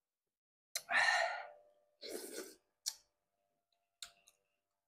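Close-up eating sounds of a man having hot rice porridge from a spoon. There is a loud breathy mouth sound about a second in and a softer one around two seconds. A few light clicks of a metal spoon against the porcelain bowl come near three and four seconds.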